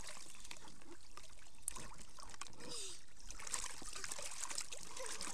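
Light splashing and trickling of water in a small plastic paddling pool as a toddler kicks and paddles in it.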